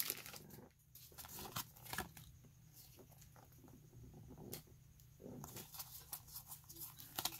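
Faint rustling and soft clicks of a handful of Pokémon trading cards being handled and slid against one another, a slightly louder click about two seconds in.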